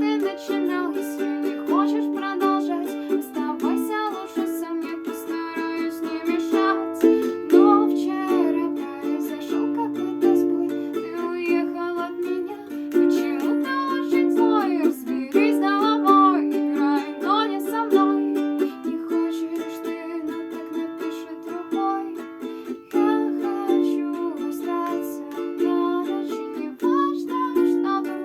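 Background music: a cover song with steady plucked-string chords and a melody line gliding above them.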